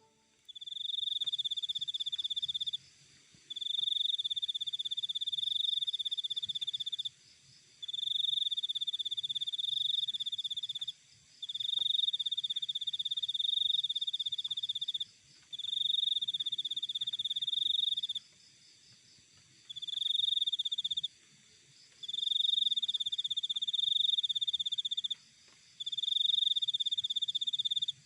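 A cricket singing in long, high-pitched trills of about two to four seconds each, with short pauses between them.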